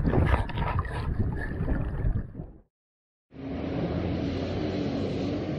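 Wind buffeting the microphone and water rushing and splashing past a small sailing catamaran's hull, with scattered small knocks. This cuts off abruptly about halfway through. After a brief silence it gives way to a steadier background noise with a faint low hum.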